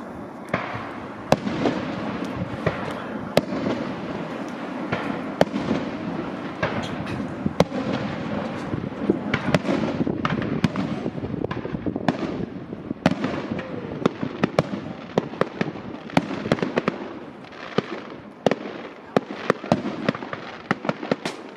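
Fireworks display going off: a rapid, irregular string of sharp bangs and crackles, several a second, over a steady rumbling haze of further bursts.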